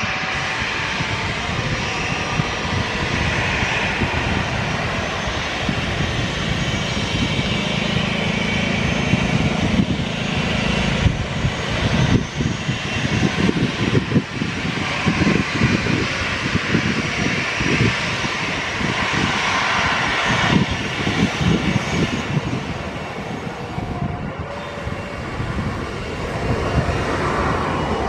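Jet engines of a Boeing 737 airliner running loud, a steady rush over an uneven low rumble that eases briefly about three-quarters of the way through.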